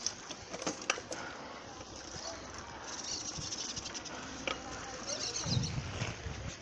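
Bicycle riding along a paved street: an even rolling noise from the tyres and bike, with scattered sharp clicks and rattles from the bike and the handheld phone.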